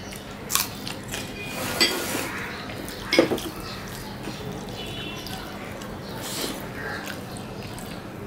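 Eating with the hands at a table: fingers mixing rice and curry on china plates, with three sharp clinks of crockery, the loudest about three seconds in, as a plate used as a lid is set down off a serving bowl.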